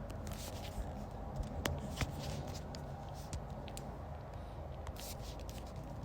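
Faint scattered clicks and taps over a low steady hum.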